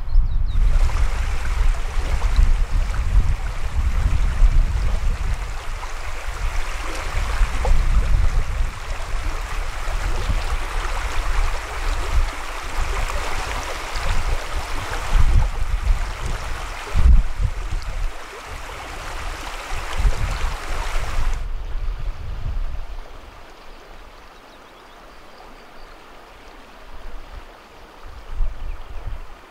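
Rushing water of a stream, a steady hiss, with wind gusts rumbling on the microphone. The water sound cuts off about 21 seconds in, leaving quieter wind.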